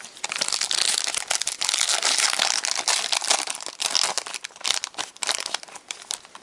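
Foil wrapper of a trading-card pack crinkling and tearing as it is handled and opened, with a dense run of crackles that thins out to a few scattered clicks near the end.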